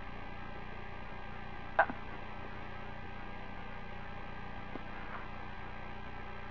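Steady hum and hiss of an open radio/intercom communication channel, broken by one sharp click a little under two seconds in and two faint ticks later.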